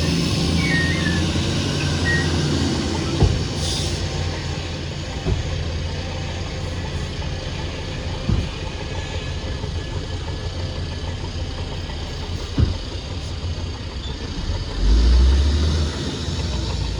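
Heavy diesel earthmoving machinery running steadily at low pitch, with a few sharp knocks and a louder surge of engine power near the end.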